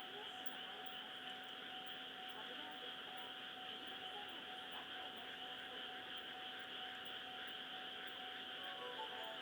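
A large chorus of frogs calling without pause, a dense, even sound with a faint steady hum beneath it. Near the end a series of short musical tones at several pitches begins.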